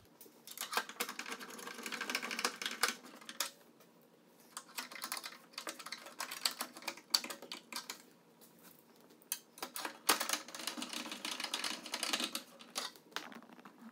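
Long screws being turned by hand with a screwdriver into the plastic side cover of a Pro-Form 235 CSX exercise bike: three runs of rapid clicking and creaking, each a few seconds long, as the threads bite into the plastic.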